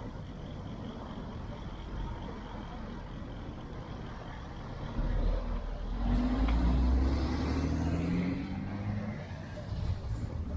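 Traffic noise with a large motor vehicle's engine coming close. About five seconds in it gets louder into a pitched drone that shifts a little in pitch for a few seconds before easing off.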